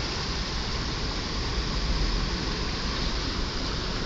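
Vehicle driving slowly through floodwater over the road, heard from inside the cab: a steady rush of water against the tyres and underbody, with the engine running underneath.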